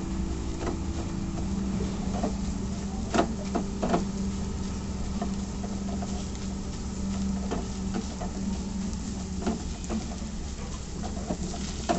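Egg scrambling in hot oil with chopped vegetables in a pan, sizzling as it is stirred continuously, with scrapes and taps on the pan now and then over a steady low hum.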